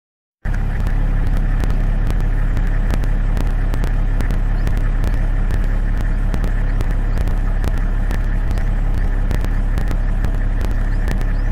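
Steady engine-like running hum with a strong low rumble, overlaid by many sharp clicks and crackles. It starts abruptly just under half a second in.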